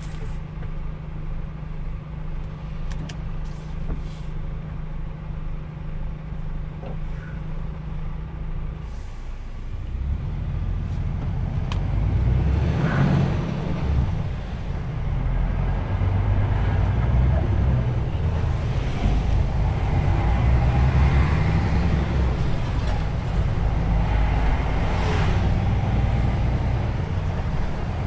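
Truck's diesel engine heard from the cab, running steadily at first, then growing louder and rougher about ten seconds in as the truck drives on under power.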